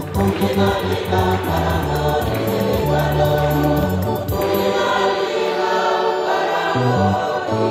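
Church choir singing a gospel procession song in harmony, with low held notes beneath. A fine, regular high tapping under the voices stops a little past halfway.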